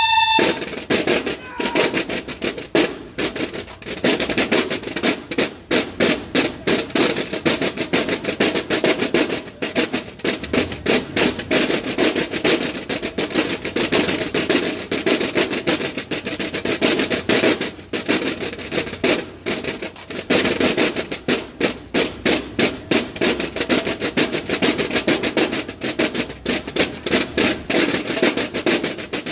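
Snare drums of a Mexican banda de guerra (drum and bugle corps) playing a fast, steady cadence in unison.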